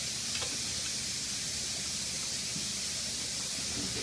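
A steady, even hiss, with one faint tick about half a second in.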